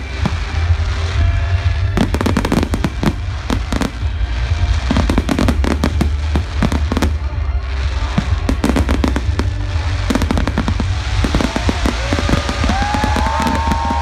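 Fireworks display finale: a dense, irregular barrage of bangs from bursting aerial shells, with crackling and a continuous low rumble underneath.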